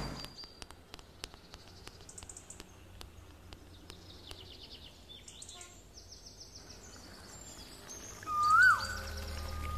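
Birds chirping and trilling, with scattered light ticks over the first few seconds. Near the end comes a louder whistled note that rises and then swoops down.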